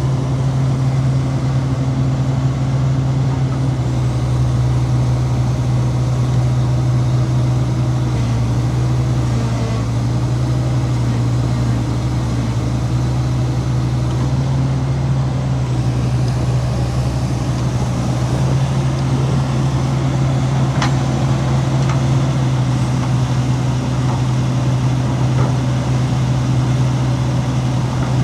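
Heavy diesel engine of earthmoving machinery running steadily at a constant speed, with one short click a little over two-thirds of the way through.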